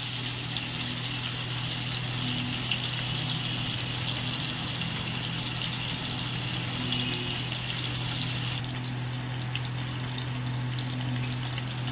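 Tilapia steaks frying in hot mustard oil in a frying pan: a steady sizzle and bubbling over a constant low hum. About two-thirds of the way through the hiss turns duller as the fish has browned.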